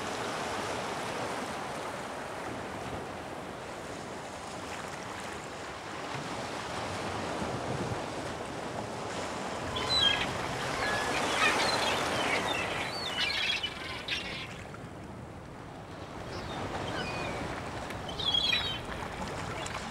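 Sea waves washing in, swelling and falling, with gulls calling from about ten seconds in and again near the end.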